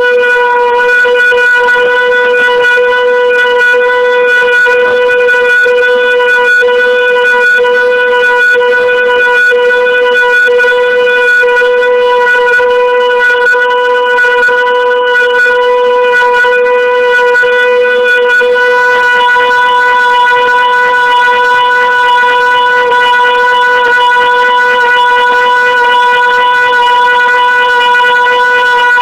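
CNC vertical turning lathe cutting a part, giving off a loud, steady whining tone with overtones that holds one pitch throughout.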